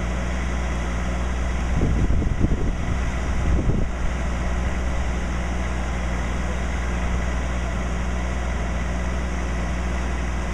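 Parked fire engine idling with a steady low hum. A brief irregular low rumble runs for about two seconds, starting about two seconds in.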